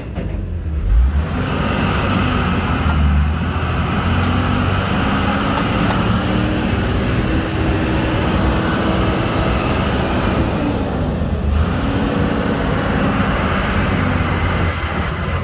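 Amphibious duck boat's engine running as the vehicle travels, a steady drone that rises and falls slightly in pitch over the rush of its motion.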